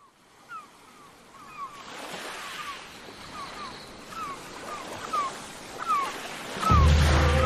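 Ocean surf sound effect fading in and swelling, with birds giving short falling cries again and again over it. Music with deep sustained notes comes in near the end.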